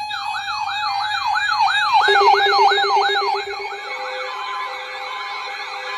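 Electronic siren in a rapid yelp, its pitch sweeping up and down about three times a second over a steady tone; about two seconds in a lower steady tone joins and the sweeps grow fainter and blurred.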